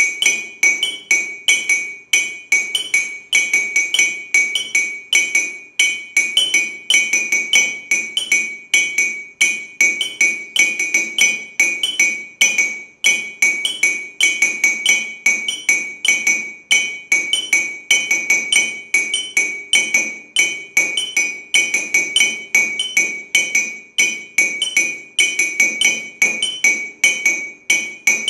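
Two ceramic mugs tapped in a fast, repeating rhythm pattern in 18/8, each strike a short ringing clink.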